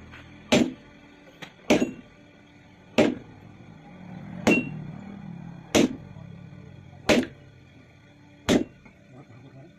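Sledgehammer blows on red-hot iron held with tongs on an anvil, hand forging: seven heavy strikes, one about every second and a quarter, several with a short metallic ring.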